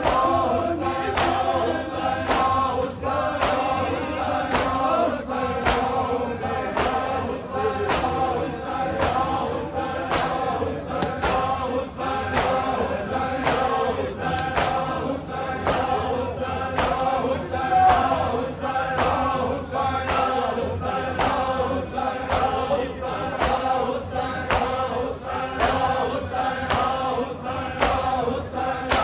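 A group of men chanting a Punjabi noha in unison, kept in time by a steady rhythm of chest-beating (matam) slaps, about three strikes every two seconds.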